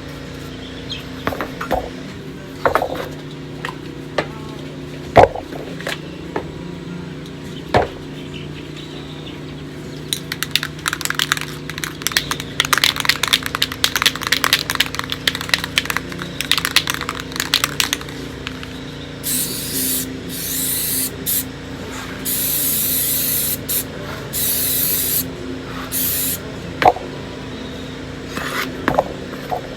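Aerosol can of Rust-Oleum gloss enamel being shaken, its mixing ball rattling fast for several seconds from about 10 s in, then sprayed in short hissing bursts from about 19 s on. A few knocks come first, the loudest about 5 s in.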